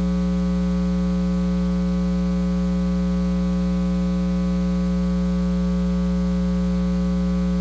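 Steady electrical hum with a stack of overtones, unchanging and about as loud as the speech around it: mains hum in the microphone and broadcast audio feed.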